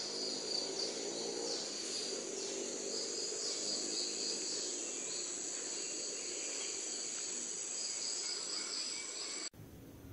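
High, steady chorus of insects droning in the trees. About nine and a half seconds in it cuts off suddenly to a much quieter outdoor background.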